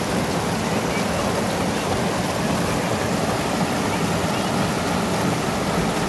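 Whitewater rushing and churning over rocks in a small rocky cascade, as a steady, even rush of water.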